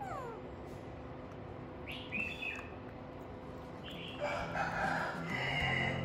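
A rooster crowing, one long call of about two seconds starting around four seconds in, with a short falling call at the very start and a brief one about two seconds in.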